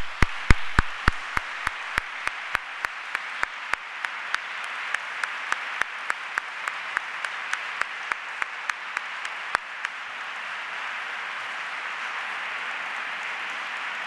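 Audience applauding. One set of loud, sharp claps close to the microphone stands out at about three a second over the first ten seconds, then the applause runs on evenly.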